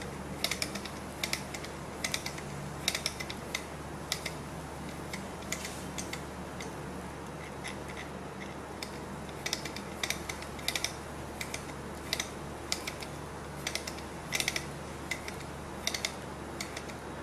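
Small glass-and-metal gamma-type Stirling engine's flywheel and crank linkage clicking as the flywheel is flicked round by hand. Irregular clusters of light ticks come over a faint steady hum. The engine is not yet running on its own while its glass cylinder heats up.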